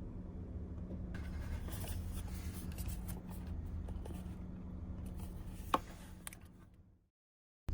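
A steady low hum with light scraping and rustling over it and one sharp click, all fading out near the end.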